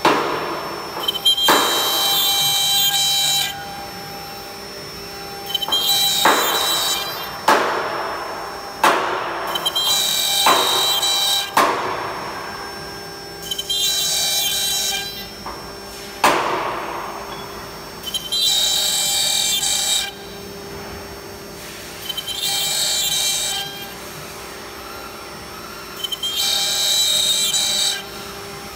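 CNC router's spindle running with a steady whine while its bit plunges into a wood board again and again. Each plunge makes a harsh cutting burst of about two seconds, roughly every four seconds, with a few sharp knocks in between.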